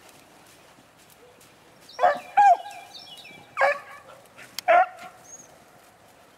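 Rabbit-hunting dogs baying as they run a rabbit in full chase. There are four loud bays, the first two close together, each trailing off into a held note.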